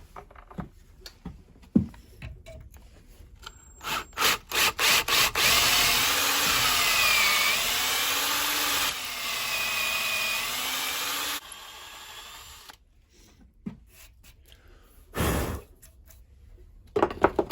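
Power drill run in a few short trigger blips, then held on for about six seconds, its pitch wavering as it works under load, before it stops. The owner says this drill is dying.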